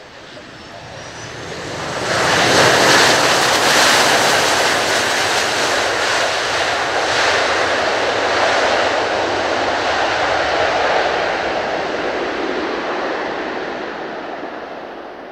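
Boeing 737-800's CFM56-7B jet engines on the landing rollout, a roar that climbs sharply about two seconds in, stays loud for about nine seconds, then fades as the airliner moves away; the surge fits reverse thrust applied after touchdown with the ground spoilers up.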